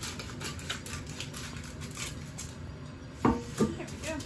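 Scissors snipping parchment paper around a round metal cake pan, a run of small crisp cuts and rustles. A little past three seconds in, the metal pan clanks twice in quick succession.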